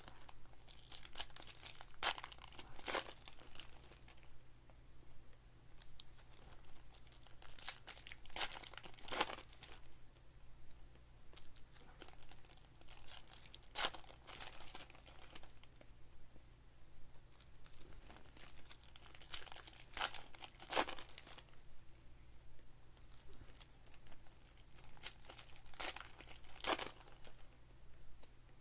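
Foil trading-card pack wrappers being torn open and crinkled by hand, in short spells of sharp crackling every five or six seconds.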